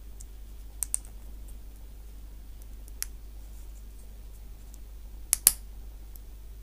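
Small plastic model-kit arm parts being pressed together by hand, giving a few sharp plastic clicks: a quick pair about a second in, one at three seconds, and a louder pair near the end as pieces snap into place.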